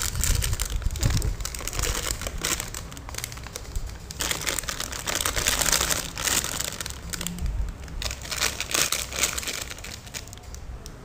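Plastic packaging crinkling and crackling as hands handle squishy toys sealed in plastic bags, with many quick irregular crackles.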